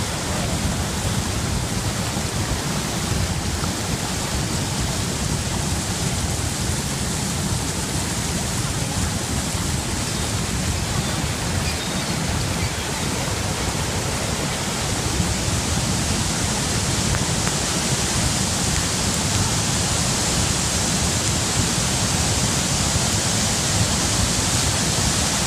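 Niagara Falls rushing over the brink close up: a loud, steady roar of falling water with a deep rumble underneath, growing a little louder in the second half.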